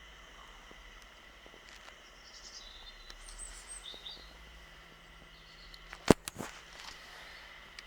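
Birds chirping faintly over quiet outdoor background, then two sharp clicks close together about six seconds in.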